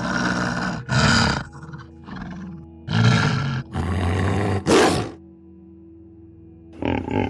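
Big cat roaring: a string of loud, hoarse roars of varying length in the first five seconds. After a short pause, a run of quick, rhythmic grunting pulses begins near the end.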